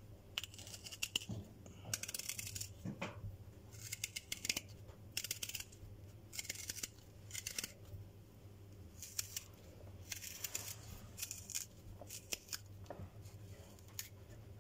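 A hand tool scraping and carving out the flesh of a black radish in short, irregular strokes with a crisp, scratchy sound, hollowing it out without piercing the skin.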